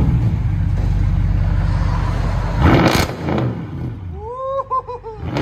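Straight-piped exhaust of an Audi S7's 4.0 L twin-turbo V8, running loud and raspy. About three seconds in there is a quick throttle blip with a sharp crack, and then the engine eases back.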